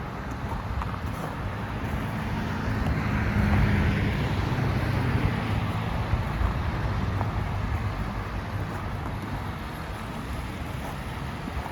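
Wind rumbling on the microphone over steady outdoor noise, with a vehicle passing that swells and fades, loudest about three to four seconds in.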